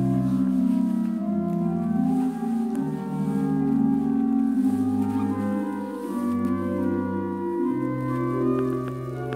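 Organ music: slow, sustained chords over held bass notes that change every second or two.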